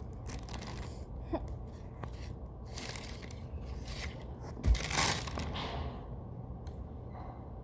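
Rustling and crinkling of a homemade squishy being cut and torn open by hand, in irregular bursts, with a short thud about four and a half seconds in followed by the loudest rustle.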